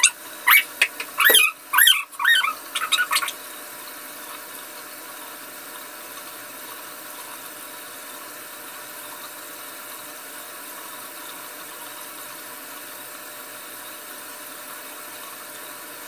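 A woman's voice in short bursts for about the first three seconds, then a steady, even hiss with nothing else in it.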